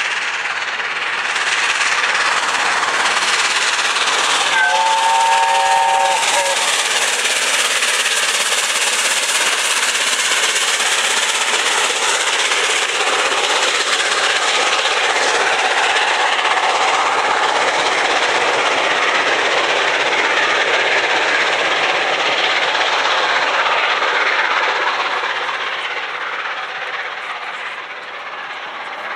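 LNER Peppercorn A1 Pacific 60163 Tornado, a three-cylinder steam locomotive, passes at speed hauling its coaches, its exhaust working hard after a long climb and its wheels running over the rails. About five seconds in it sounds its whistle, a chord of several notes held for about two seconds. The sound fades near the end as the train draws away.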